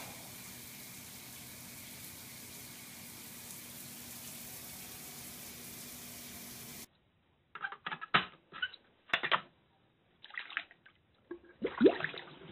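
Water running steadily into a bathtub from a shower for about seven seconds, then cutting off abruptly. Short, irregular splashes follow as a cat paws at water in a bathroom sink, the loudest burst near the end.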